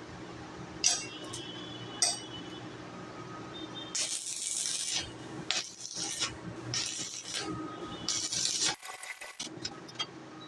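Metalwork on a steel plant stand: two sharp metallic clinks, then four short bursts of harsh hissing noise over a steady low hum.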